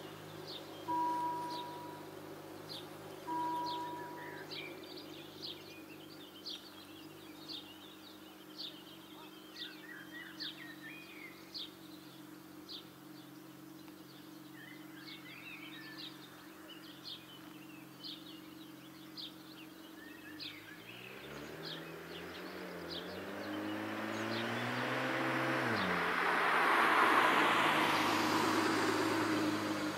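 Level-crossing bell (Läutwerk) ringing a couple more strokes as the electric barriers finish lowering, then falling silent, with a bird chirping regularly. In the last third a car approaches and slows to a stop at the closed barrier, its engine pitch falling as it brakes.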